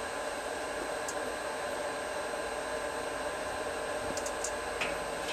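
Steady fan-like hiss, with a few faint ticks about four seconds in.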